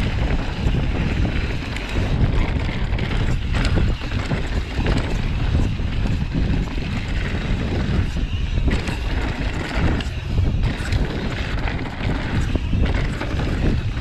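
Wind buffeting an action camera's microphone while a mountain bike rides fast downhill, with tyres rolling over dirt and loose stones and the bike knocking and rattling over bumps.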